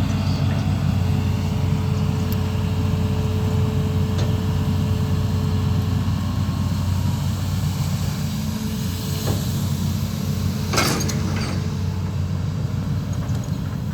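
Large amphibious excavator's diesel engine running steadily, with a short sharp noise about three seconds before the end.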